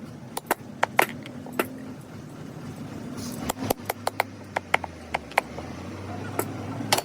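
Irregular sharp taps and clinks of hand tools at work, coming faster in the middle. A low steady hum joins about halfway through.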